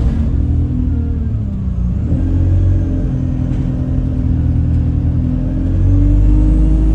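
Alexander Dennis Enviro200 bus under way: engine rumble with a steady humming, horn-like tone over it, which the uploader thinks comes from the gearbox. The tone sags in pitch over the first two seconds, jumps back up, then climbs slowly as the bus pulls.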